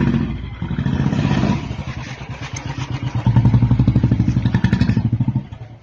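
Royal Enfield motorcycle exhaust through an aftermarket short dholki-type silencer, running with rapid, distinct pulses as the throttle is worked. It eases off about two seconds in, gets louder again a second later, then dies away near the end.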